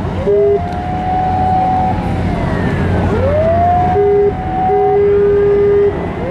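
Sirens of coast guard and police boats in a sea chase. One siren winds up in pitch and holds, three times over. A lower steady tone sounds in one short and two longer blasts. A steady engine and wind rumble runs beneath.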